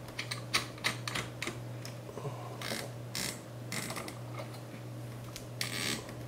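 Threaded clamp ring of a water-cooling compression fitting being screwed by hand onto a PVC tube at a CPU waterblock nozzle: small irregular clicks with a few short scraping rasps as the threads turn.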